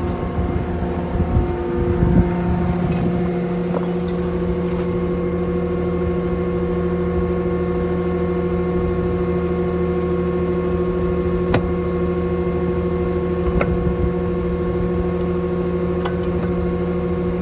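Skid steer engine running steadily with a hydraulic whine, its tone shifting about two seconds in. A few sharp clicks and knocks come near the middle.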